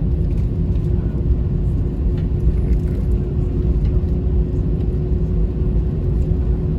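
Airbus A320 cabin noise on the ground just after landing: a steady low rumble from the engines and the wheels rolling, with a steady droning tone over it.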